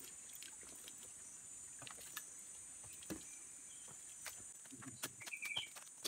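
Steady high-pitched drone of insects, with scattered snaps and crackles of footsteps on bamboo poles and dry leaves. A few short chirps come near the end.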